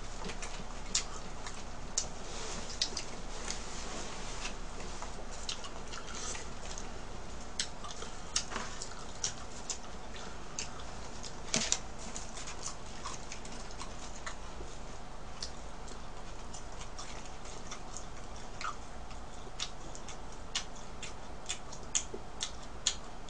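Eating french fries: irregular sharp clicks and crunches of chewing, mixed with crackling of the paper wrapper around the fries, over a faint steady hum.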